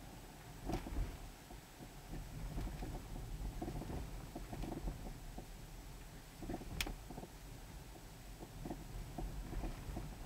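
Low road rumble inside a moving car's cabin, with scattered soft knocks and one sharp click about seven seconds in.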